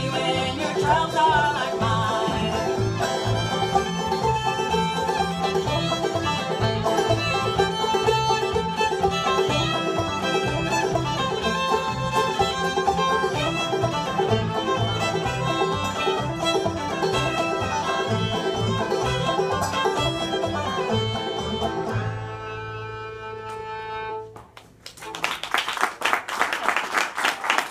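String band of banjo, fiddle, acoustic guitar and upright bass playing an instrumental ending, closing on a held chord that rings out about 22 seconds in. Near the end the audience applauds.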